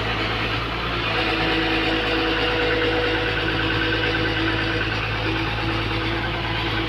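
Komatsu PC240 excavator's diesel engine running steadily, with a fainter higher tone wavering over its even hum.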